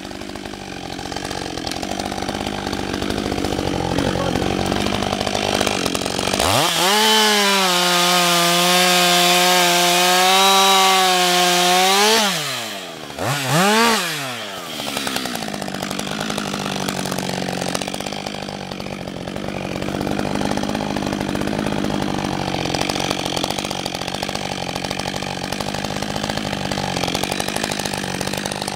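Husqvarna 562 XP two-stroke chainsaw idling. About six seconds in it is revved up to a high, steady full-throttle pitch for about five seconds, dropped back, given one short blip, then left idling.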